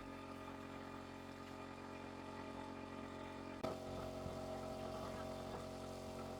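A steady mechanical hum made of several even tones, with a sharp click about three and a half seconds in, after which the hum grows a little louder.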